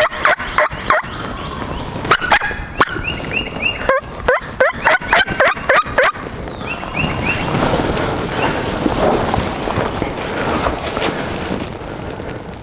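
Wild turkey gobbler gobbling loudly in several rapid bursts over roughly the first half, with short runs of high, quick repeated notes in between; a steadier rushing noise follows.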